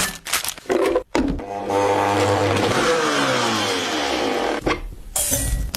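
Motor of a small electric kitchen appliance running for about three seconds, its pitch sliding steadily down. A few short knocks and scrapes come just before it.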